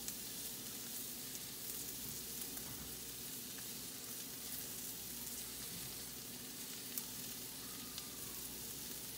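Sliced green bell peppers and onions sizzling steadily as they sauté in a skillet, with a faint tick or two near the end.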